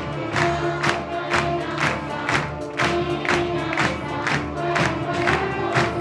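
An audience clapping in time to the music, about two claps a second. Behind it a children's orchestra plays, and a children's choir sings along.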